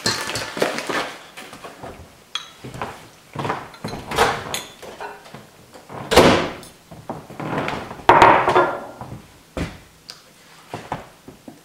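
Kitchen clatter while pancake batter is mixed in a stainless steel bowl: a spoon knocking and scraping against the bowl and milk poured in from a measuring cup. A door shuts with a thud about six seconds in, the loudest sound.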